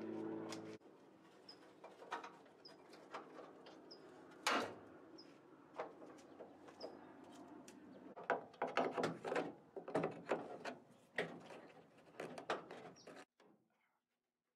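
A small propeller plane's engine droning overhead, cut off about a second in. Then scattered metal clicks and knocks from hand-tool work on the bare steel and wood roof frame of a 1929 Ford Model A body, coming thick and fast over the last five seconds, with small birds chirping now and then.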